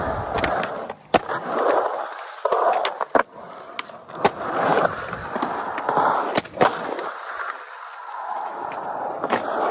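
Skateboard wheels rolling over concrete in a skatepark bowl, swelling and fading as the board carves up and down the transitions. Several sharp clacks of the board popping and landing break in through it.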